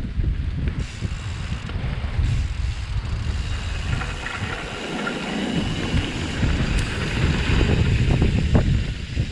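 Mountain bike riding down a dirt trail, heard from a camera on the bike or rider: wind rushing over the microphone with the rumble of tyres on dirt and rattling from the bike. There are a couple of sharp knocks near the end.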